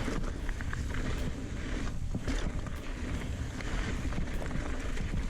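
Mountain bike riding a dry dirt trail: tyres rolling over loose ground and the bike rattling, with scattered small knocks and a heavy wind rumble on the camera's microphone.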